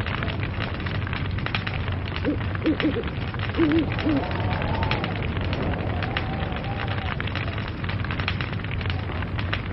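Log fire burning, with dense irregular crackles and pops over a steady low rumble. A few short pitched notes sound about two to four seconds in.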